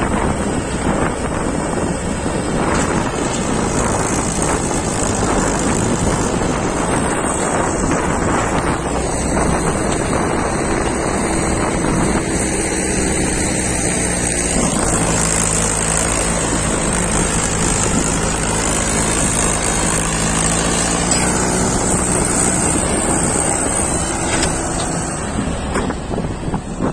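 Diesel engine of a Swaraj 843 XM tractor working hard while the tractor, hauling a loaded trailer, is stuck in soft ploughed soil, with wind buffeting the microphone. From about halfway to two-thirds through, a JCB backhoe loader's diesel engine comes through as a steadier drone with a clear pitch.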